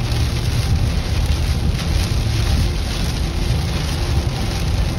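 Cabin noise of a vehicle driving on a rain-soaked highway: a steady low road and engine drone under a constant hiss of rain and tyre spray.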